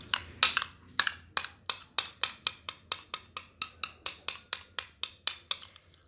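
A spoon stirring a thick paste of tomato, lemon juice and toothpaste in a small dish, clinking against its side about four times a second. The clinking stops shortly before the end.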